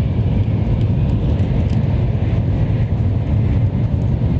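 Steady low rumble of a moving train heard from inside the carriage, a constant drone with no breaks.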